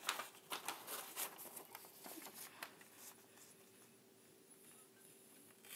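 Faint rustling and light taps of a sheet of paper being handled and smoothed flat by hand, the handling sounds thinning out after about three seconds.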